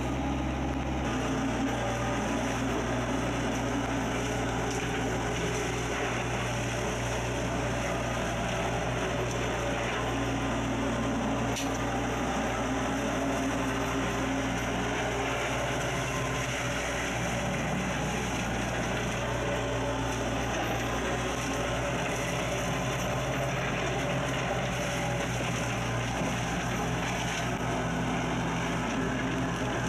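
Kubota U-40 mini excavator's diesel engine running steadily under load, with its hydraulic Kusakarugon brush-cutter head spinning as it shreds tangled vines and brush. The engine note shifts slightly a few times.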